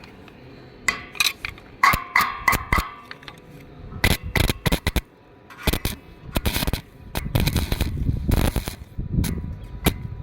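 Electric arc welding on a mild steel pipe: the arc crackling and sputtering in short, irregular bursts, denser and steadier in the last few seconds.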